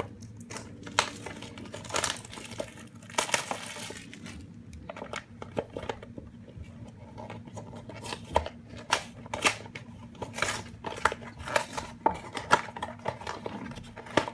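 Hands opening a toy mystery box: the packaging tears and crinkles with a run of irregular sharp clicks.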